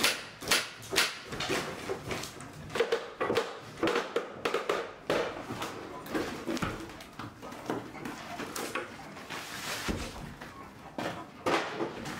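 Wooden wall panelling and battens being pried and pulled off a boat's interior: irregular cracks, creaks and knocks of wood splitting and breaking loose.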